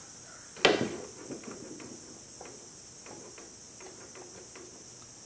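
A small steel screw being backed out of a Beaumont 1871/88 rifle bolt with a screwdriver: one sharp metallic click about half a second in, then faint light ticks and scrapes of metal on metal as the screw turns loose.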